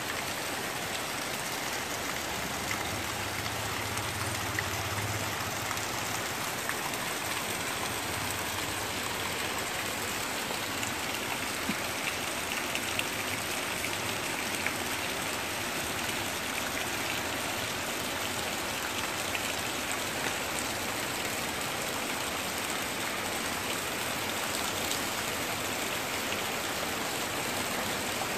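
Heavy rain pouring steadily on trees, plants and a yard: an even hiss with scattered small drop ticks.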